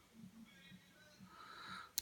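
Hook pick scraping faintly against the pins inside a Maxus padlock's keyway during single-pin picking, swelling in the second half and ending in one sharp click as a pin is pushed or sets.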